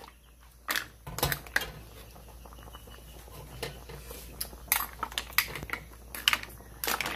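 Scattered clinks and knocks of a cooking utensil against cookware, in small irregular clusters.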